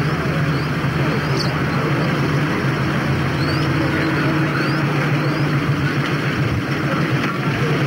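Several vintage motorcycle engines running together in a steady low drone.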